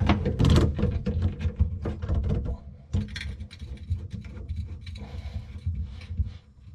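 Scattered clicks, knocks and rustles of hands at work under a sink: a braided water supply hose's brass nut is being threaded back onto a shut-off valve while a corrugated plastic drain hose is pushed aside.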